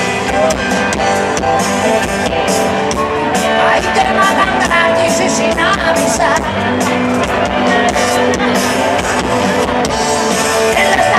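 Live rock band playing loud, with electric guitars, drums and singing, heard from within the audience.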